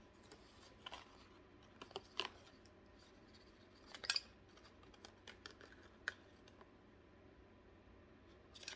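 Faint, scattered clicks and light taps of small crochet-kit pieces and their packaging being handled, a few separate ticks spread over otherwise quiet room tone.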